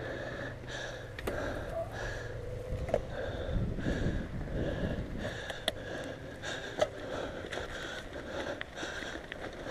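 Mountain bike rolling over a dirt trail, with a steady rumble of tyres and wind and a few sharp knocks and rattles from the bike, over a rider's hard breathing, about two breaths a second.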